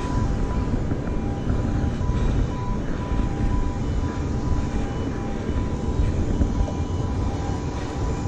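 Wind buffeting the microphone in a steady, uneven low rumble, with a faint steady high whine underneath.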